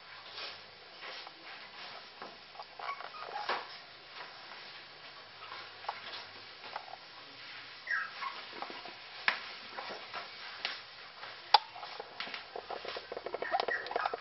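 Puppies eating cat food: a string of small clicks and chewing noises, with a few short high squeaks and one sharper click about two-thirds of the way through.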